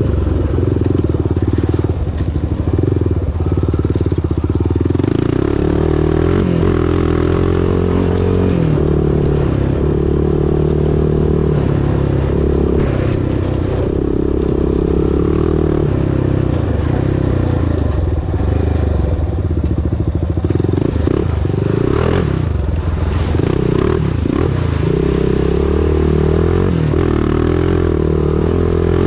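Honda TRX400EX ATV's single-cylinder four-stroke engine running loud and steady while riding, its revs rising and falling with the throttle several times.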